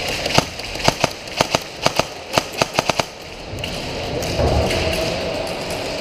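Airsoft gun firing about a dozen quick, irregularly spaced shots in the first three seconds, followed by a low rumble.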